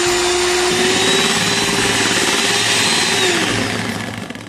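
Bajaj Majesty HM01 electric hand mixer running at speed, its beaters whipping chilled cream in a steel bowl. The motor whine holds steady, then drops in pitch and fades as the mixer is switched off near the end, the cream now whipped to stiff peaks.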